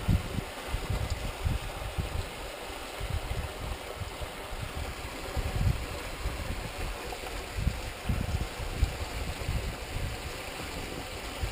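Water rushing and splashing past a moving sailboat's hull and the towed inflatable dinghy's wake, with wind rumbling on the microphone in uneven gusts.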